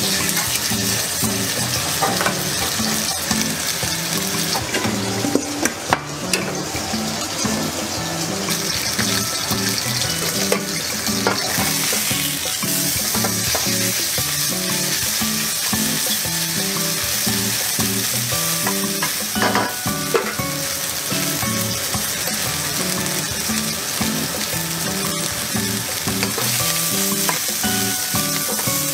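Minced meat sizzling in hot oil in a wok, stirred and scraped with a wooden spatula, with a couple of sharp knocks on the wok about six seconds in and again around twenty. Background music runs underneath.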